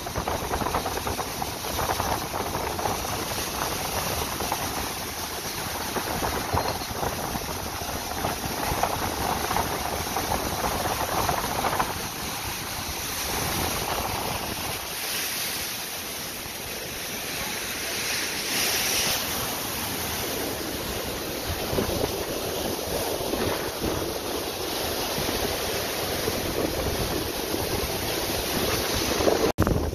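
Ocean surf breaking and washing over the shore in a continuous rush that swells with each wave, with wind buffeting the microphone.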